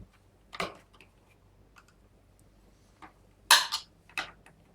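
Plastic trim cover on a Volkswagen boot lid being pried off, its clips and plastic giving a few sharp clicks and clacks, the loudest cluster about three and a half seconds in.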